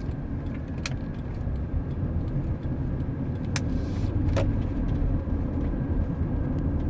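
2006 Honda Odyssey minivan driving at highway speed, with a steady low road and engine drone. A few sharp knocks come through about a second in and again around three and a half and four and a half seconds: the clunking noise the owner is trying to trace.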